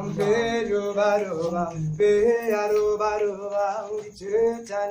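Male vocal group singing a cappella in harmony, a low part sustained under a higher lead line, in held phrases broken by short breaths about two seconds and four seconds in.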